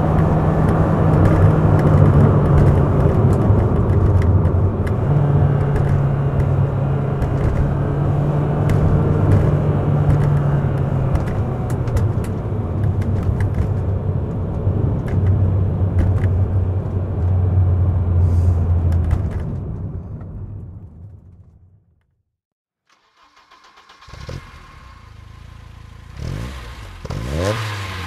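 1988 BMW M3 (E30)'s S14 four-cylinder engine running, its pitch holding steady for a few seconds at a time and then stepping lower. The sound fades out about two-thirds of the way through. After a short silence the engine sound returns, with quick rising and falling revs near the end.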